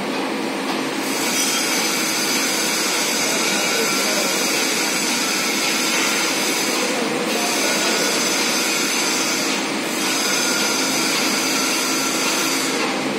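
Electric drive of a mobile belt conveyor running steadily, a whining hum over a noisy hiss, while the conveyor's boom is lowered.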